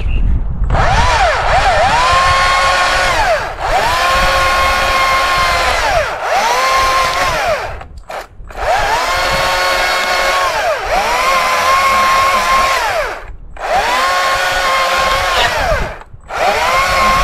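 Two-stroke chainsaw cutting into a downed tree trunk, throttled in about seven bursts. Each burst revs up, holds for a second or more, then drops back with a short dip before the next.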